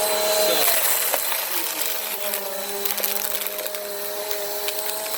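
Bissell Power Force Compact upright vacuum running over sandy carpet, its motor humming steadily while sand and grit rattle and click up through the brush roll and nozzle.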